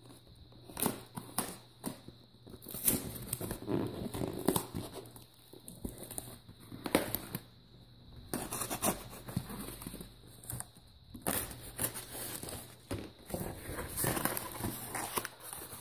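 A knife blade slitting packing tape on a cardboard parcel, with tape tearing and cardboard scraping and rustling as the box flaps are pulled open: a run of irregular scrapes, rips and cracks.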